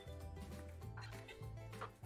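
Instrumental background music: sustained notes over a regular bass pattern.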